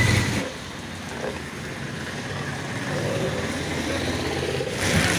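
Traffic on a rain-wet street: a motor vehicle's engine running over a steady hiss, growing gradually louder.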